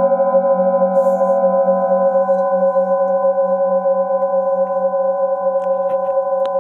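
Metal singing bowl ringing on after its rim is rubbed with a mallet: several steady tones over a low, pulsing hum, with a few of the upper tones dying away about two seconds in.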